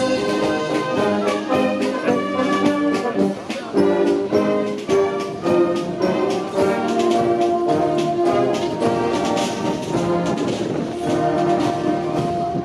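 Brass band playing a tune, several brass instruments sounding and changing notes together, with drum beats.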